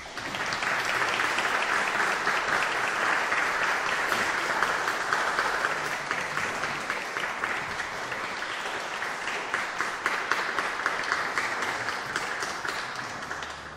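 Audience applauding, a dense patter of many hands clapping that is fullest in the first few seconds and thins out near the end.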